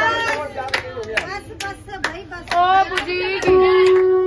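A group of people clapping hands in a steady beat, about two to three claps a second, while voices sing a devotional bhajan along with it. A long steady tone comes in about three and a half seconds in.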